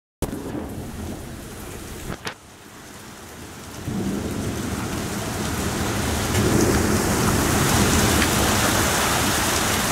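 Torrential rain pouring steadily in a thunderstorm. A low rumble of thunder swells about four seconds in and carries on to the end. There is a short click about two seconds in.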